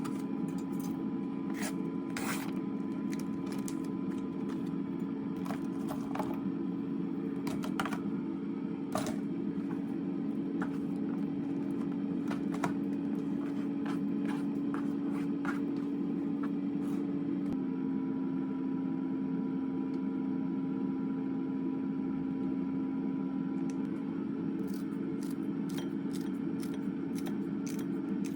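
A steady machine hum runs throughout, shifting slightly in pitch twice, with scattered clicks and scrapes of things being handled.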